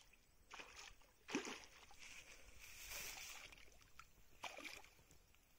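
Faint splashing and sloshing in shallow water as a hooked fish is hauled in to the bank. There are a few separate splashes, the loudest about a second and a half in, and a longer swish of water in the middle.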